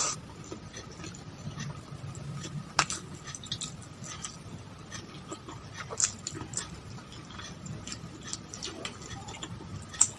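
Close-miked eating sounds: chewing and mouth clicks, with a few sharper clicks, the loudest about three seconds and six seconds in, over a faint steady hum.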